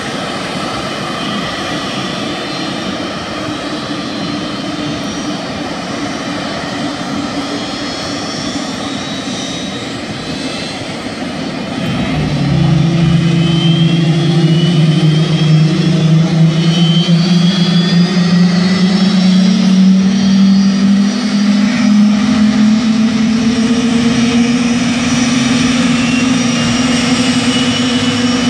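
Blue Angels fighter jets' turbine engines starting on the flight line: a steady jet whine with high whistling tones slowly rising in pitch. About twelve seconds in, a louder, deeper drone comes in and slowly climbs in pitch as an engine spools up.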